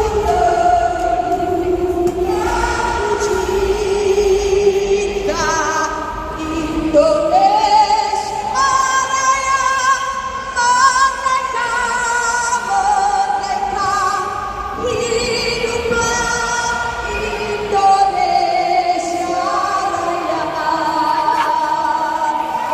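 Loud singing with music over a stadium sound system: a choir-like, female-led vocal melody with long held, wavering notes.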